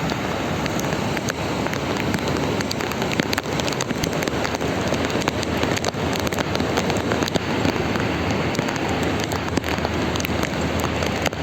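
Heavy rain falling steadily, with many sharp individual drop strikes close by.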